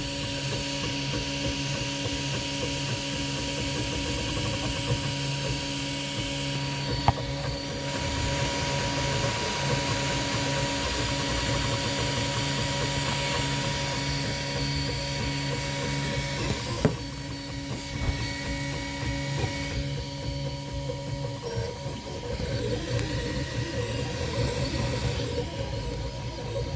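Toybox 3D printer printing: a steady motor whine and hum whose tone shifts every few seconds as the print head changes its moves, with a couple of single light clicks.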